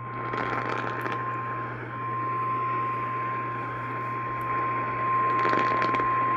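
Emergency Alert System attention tone heard over AM radio: one steady, unbroken tone, with static hiss, a low hum and scattered crackles of interference behind it.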